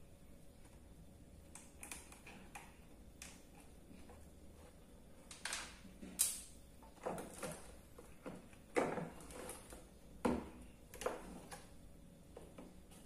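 Clicks, taps and plastic knocks of hands working at a motorcycle battery in a Honda Beat scooter's under-seat battery compartment, undoing the terminals and freeing the old battery from its plastic tray. A few scattered clicks give way to a run of louder knocks and rattles from about five seconds in.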